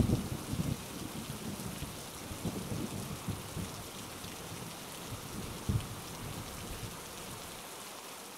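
Rain falling steadily with rolling thunder. The thunder is loudest at the start and dies down after about a second, with one more brief rumble about six seconds in, and the whole sound fades down near the end.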